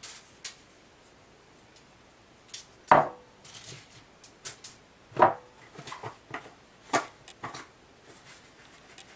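Irregular clicks and knocks of kitchen containers and utensils being handled while seasoning meat, with two louder knocks about three and five seconds in that ring briefly.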